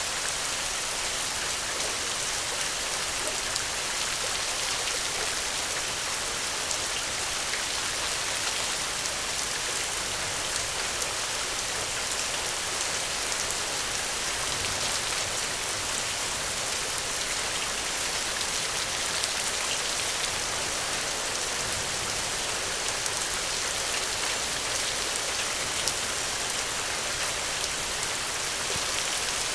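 Steady rain falling on a surface, an even hiss with many fine scattered drop ticks.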